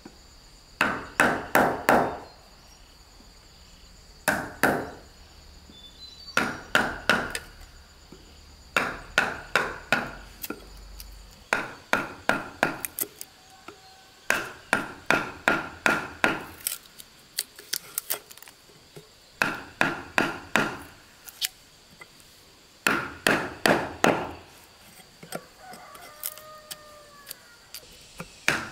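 Hand tool chopping wood: quick blows in bursts of three to six, with pauses of a second or two between bursts.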